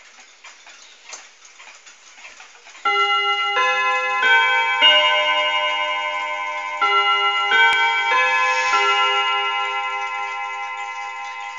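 Pendulum mantel clock striking the half hour: a few faint ticks and clicks, then about three seconds in it rings a chime melody in two phrases of four notes, each note ringing on and slowly dying away.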